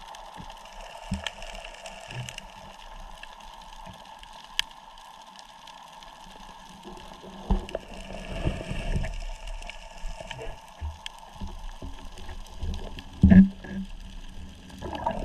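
Muffled underwater sound with a steady faint hum, then low knocks and scuffing as a gloved hand grabs a swimming crab out of the sandy seabed. There is a sharper thump about 13 seconds in.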